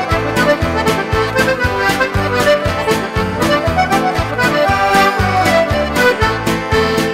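Button accordion playing a lively traditional Newfoundland/Irish-style tune over a steady beat.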